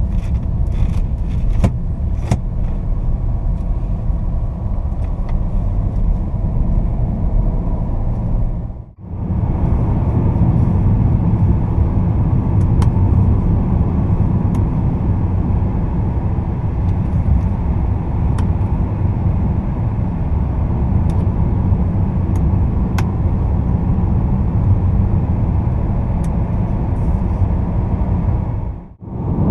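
In-cabin drive noise of a Fiat Toro with a 2.0 Multijet II four-cylinder turbodiesel: steady low engine drone and tyre and road rumble while driving and then cruising at highway speed. A few light clicks come in the first couple of seconds. The sound drops out briefly about nine seconds in and again near the end.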